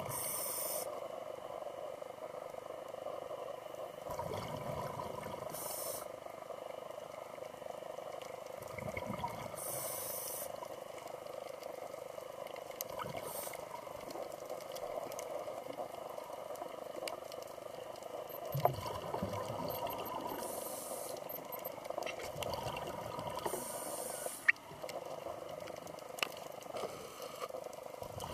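Scuba regulator breathing underwater. A short hiss of inhalation comes every few seconds, and between them come low bubbling rumbles of exhaled air, over a steady muffled hum.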